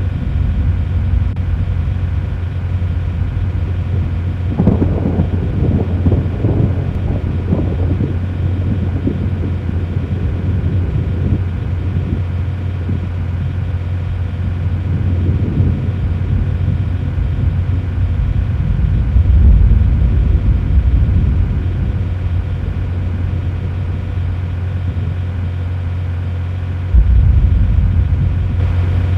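Low steady rumble and hum, with louder rolling rumbles about five seconds in and again around twenty seconds, and a sudden jump in the low rumble near the end.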